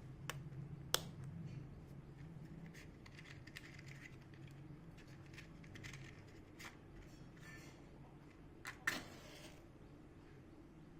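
Faint clicks and light handling noise over a low steady hum that fades out about halfway through.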